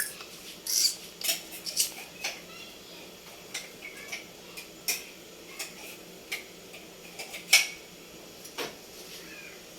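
Kitchen utensils clinking and knocking against pots and dishes in irregular, separate clinks, some with a short metallic ring.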